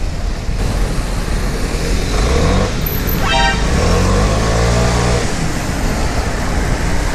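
Vespa Primavera 150 scooter's single-cylinder four-stroke engine running under throttle, rising in pitch as it accelerates from about two seconds in, amid city traffic. A short horn beep about three seconds in.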